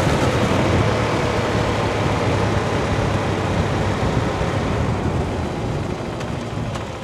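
Husqvarna Svartpilen 401's single-cylinder engine running under a steady rush of wind noise, with the sound slowly easing off.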